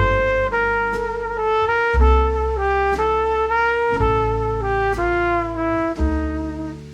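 Instrumental background music: a brass melody moving note to note over bass and a steady beat.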